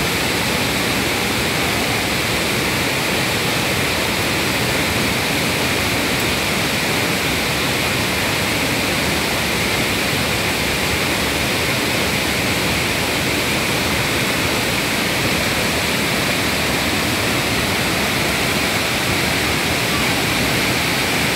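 A large waterfall rushing steadily: an even, unbroken noise of falling water.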